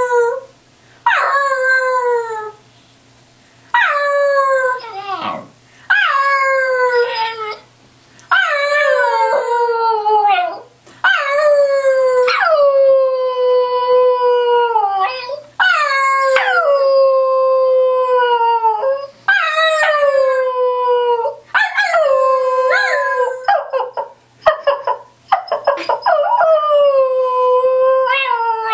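Cairn terrier howling: a string of about nine long howls, each starting high and sliding down in pitch, with short breaks between them. One howl near the middle runs for about four seconds.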